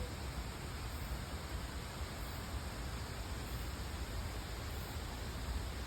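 Waterfall swollen by the previous day's typhoon rain, heard as a steady rushing roar with a low, uneven rumble underneath.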